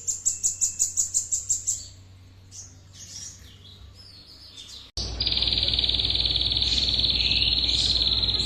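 Songbird giving a fast run of about a dozen high chirps, then a few scattered calls. About five seconds in, a sudden cut to a continuous shrill trill over a louder hiss.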